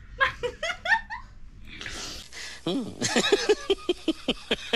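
A person laughing: a short giggle, then from just under three seconds in a fast run of rhythmic laughs, about four or five a second.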